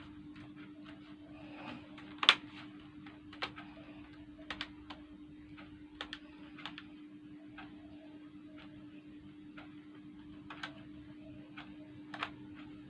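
Scattered sharp clicks and taps of small parts and tools being handled on a laptop during repair, over a steady low hum; one click about two seconds in is the loudest.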